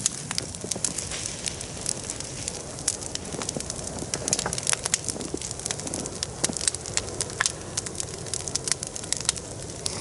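Bonfire of heaped brush and branches burning, crackling with many sharp pops at irregular intervals over a steady low rush of the flames.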